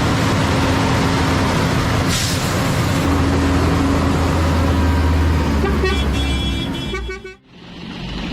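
Heavy vehicle engine running steadily, with a short horn-like tone about six seconds in; the sound drops away abruptly about seven and a half seconds in.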